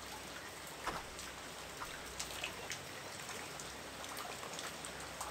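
Steady hiss of light rain, with scattered water drops ticking irregularly on nearby surfaces.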